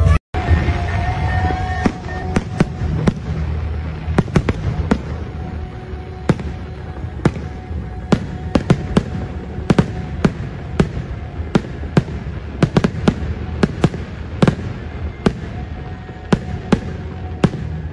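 Fireworks display: aerial shells bursting in an irregular series of sharp bangs and crackles, a few a second, over a steady low rumble.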